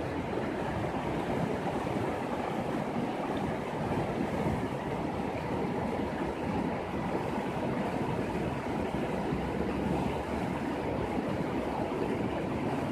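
Shallow mountain river rushing over a stony bed: a steady, even rush of water.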